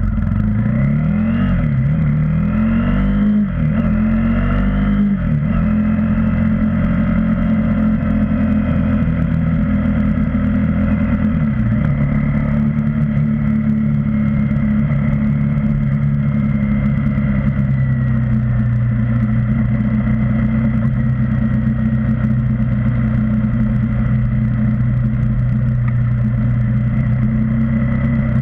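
KTM Duke 390 single-cylinder engine under way. For the first five seconds or so its note rises and drops back several times as the bike accelerates and changes up through the gears. After about twelve seconds it settles into a steady cruising note.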